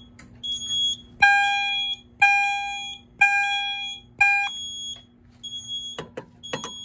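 Fire alarm chime strobe sounding four chimes about a second apart, each striking sharply and fading, signalling the alarm from the just-activated SIGA-270 pull station. Under it a high-pitched panel buzzer beeps in short pulses about once a second, and a couple of clicks come near the end.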